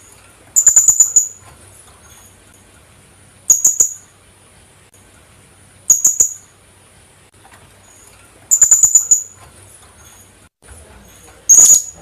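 Philippine hanging parrot (kulasisi) calling: five short bursts of quick, sharp, high-pitched notes, a few seconds apart.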